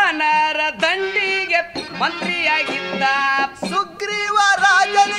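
Bhajan music: a harmonium melody with dhamadi drum and tala hand-cymbal accompaniment.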